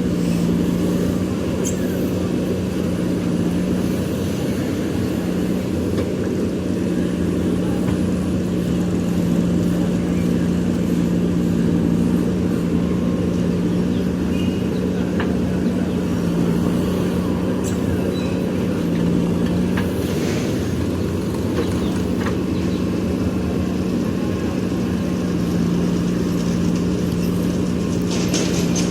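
JCB backhoe loader's diesel engine running at a steady drone throughout, with a few faint clicks and knocks over it.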